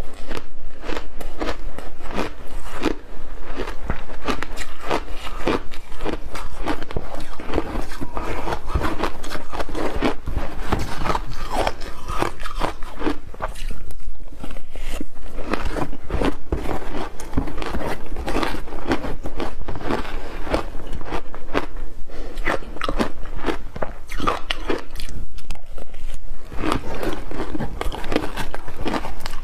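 Ice chunks coated in matcha and milk powder being bitten and chewed in big bites: continuous close, crackling crunching, easing off briefly around the middle.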